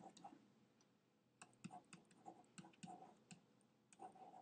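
Faint, irregular clicks and taps of a stylus pen on a tablet while handwriting characters stroke by stroke, coming in a cluster from about a second and a half in and again near the end.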